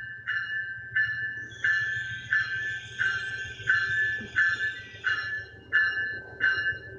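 Railroad warning bell ringing steadily, about three strokes every two seconds, as a SMART commuter train pulls into the station with a low rumble. In the middle of the stretch a hissing rush from the train rises and fades.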